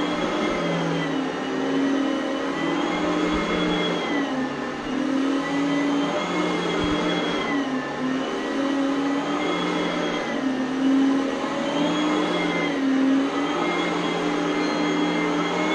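Oreck Elevate Conquer upright vacuum cleaner running steadily, its motor whine dipping and rising in pitch every two to three seconds as it is pushed back and forth.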